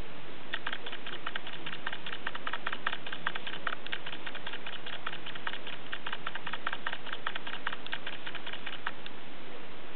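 Rapid, irregular clicking, several sharp clicks a second, starting about half a second in and stopping shortly before the end, over a steady background hiss.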